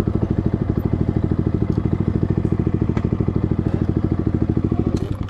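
Yamaha MT15's single-cylinder engine running through an SC Project full-system exhaust, holding a steady speed with an even, rapid exhaust pulse.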